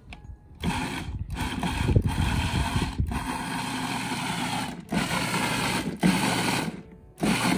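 Food processor chopping charred tomatoes and chilies into salsa. It is pulsed in about six short runs of one to two seconds each, with brief breaks between them.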